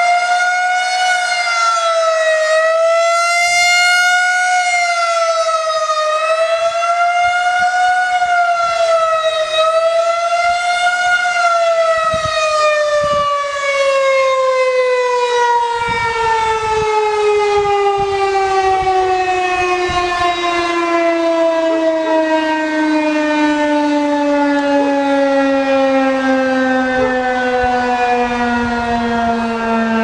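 Federal Signal 2001-130 rotating 12-port electromechanical warning siren sounding a fast wail, its pitch rising and falling every two to three seconds. About eleven seconds in it stops cycling and winds down in one long, slowly falling tone, the end of the test signal.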